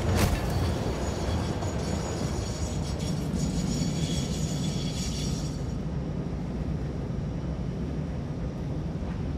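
Steady low rumbling noise of a moving vehicle, with a sharp click just after the start and faint high tones for a few seconds in the middle.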